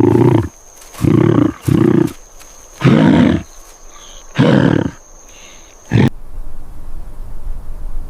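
A large animal roaring in short, low, gruff bursts, five or six times, each about half a second long. The roars cut off abruptly about six seconds in, leaving a quieter low rumble.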